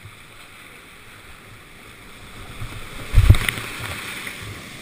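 Whitewater rapids on a mountain creek rushing steadily. About three seconds in comes a brief, loud thump as water splashes over the boat-mounted camera, and the rushing is louder after it.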